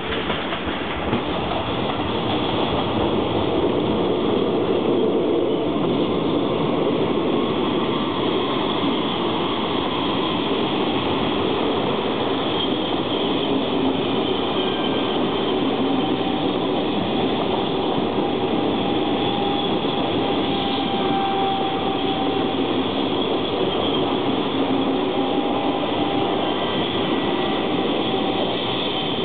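ČD class 680 Pendolino electric tilting train pulling out and rolling past at low speed: a steady rumble and rattle of wheels on rails and running gear, growing louder over the first few seconds as the carriages come alongside, with faint thin whines above it.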